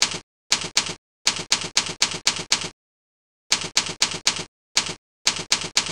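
Keyboard typing: separate sharp keystroke clicks in quick runs of about four a second, with a pause of nearly a second midway and nothing heard between the clicks.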